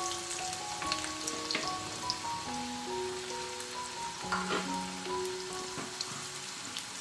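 Sliced onions sizzling steadily as they fry in hot oil in a pan, with a metal spoon stirring them near the end. Soft background music of held notes plays over the frying.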